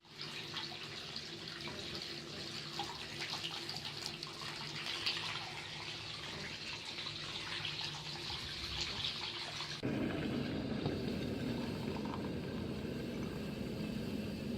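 Bath tap running hard, filling a bathtub. About ten seconds in, the sound changes abruptly to a deeper, fuller gush.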